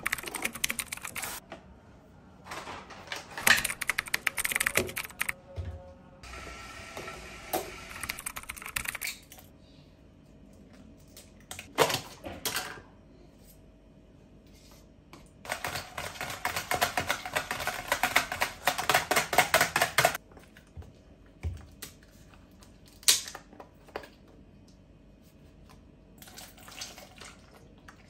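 Kitchen food-prep sounds: utensils and containers clicking, tapping and clattering against a plastic mixing bowl in separate bursts, with one long run of rapid ticking partway through and a few single knocks.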